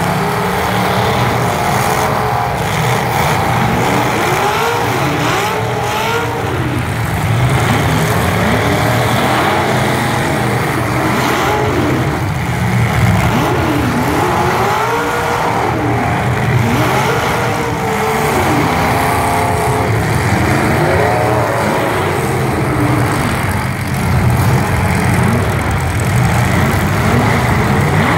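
Engines of several demolition-derby trucks revving up and down at once, their pitches rising and falling and overlapping over a constant loud din.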